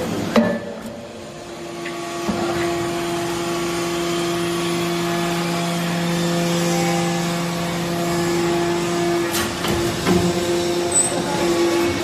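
Hydraulic metal chip briquetting press running: a steady hum from its hydraulic drive as the ram compresses metal chips in the die, with a sharp knock near the start and a few metallic knocks toward the end.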